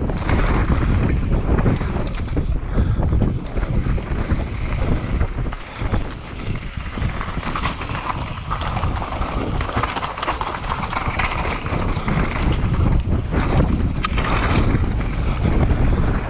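Wind rushing over the microphone and tyres running on dry dirt as a downhill mountain bike descends at speed, with frequent knocks and rattles from the bike over bumps.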